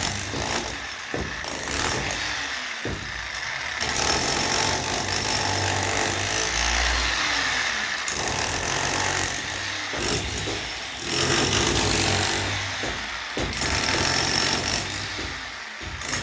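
Power tool running in several bursts of a few seconds each, with short pauses between.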